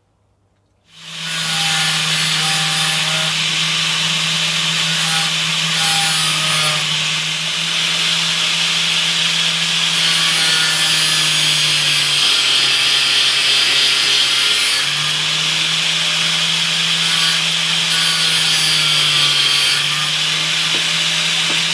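Makita angle grinder, mounted in a bench stand, running at full speed while its abrasive disc grinds into a small steel part held in locking pliers: a steady motor hum under a loud, harsh hiss of metal grinding. It starts about a second in, and its pitch sags slightly for a few seconds around the middle.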